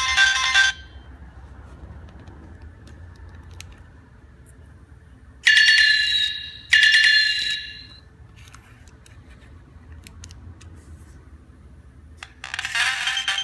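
Nokia 3220 phone tones from its speaker. A ringtone melody cuts off just after the start. Two bright chime notes then sound about a second apart, each dying away. A new ringtone of quick repeated notes starts near the end.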